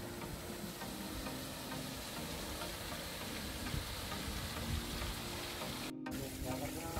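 Steady hiss with faint background music under it. The sound cuts out for an instant about six seconds in.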